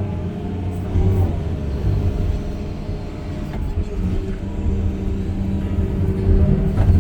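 An engine running steadily with a low rumble, its pitch shifting slightly now and then.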